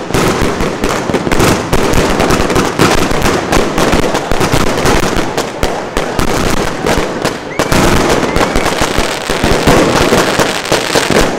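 Zena Brocade Crown 49-shot 30 mm fireworks battery firing: launch thumps and shell bursts following one another in quick succession, several a second, as brocade crown shells break overhead.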